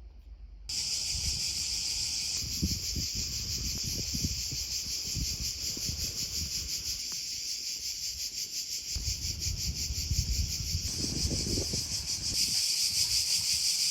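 Cicadas buzzing in a loud, dense, rapidly pulsing chorus that starts abruptly about a second in.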